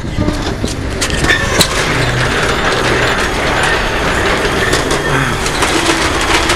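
Metal roller shutter door rattling steadily as it rolls, with scattered clicks and knocks.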